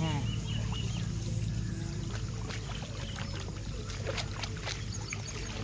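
Shallow paddy-field water splashing and sloshing as rice seedlings are pulled up by hand from the flooded nursery mud. Scattered short splashes sound over a steady low hum.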